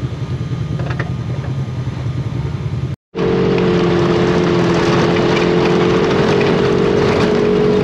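Polaris RZR side-by-side's engine running at low speed in the cab. After a brief break about three seconds in, it runs faster and louder with a steady higher hum and a rush of wind and road noise from the dirt track.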